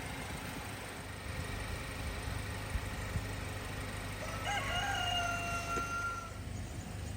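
A rooster crows once, a single pitched call of about two seconds starting a little past the middle, over the steady low hum of a car engine idling, the Golf 8 GTI's 2.0-litre turbocharged petrol four.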